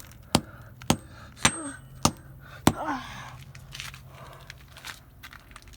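Sharp knocks of hard plastic and electronic parts from a smashed kitchen timer and alarm clock being handled and dropped onto a pile: five knocks in a row about half a second apart, then a few lighter clicks.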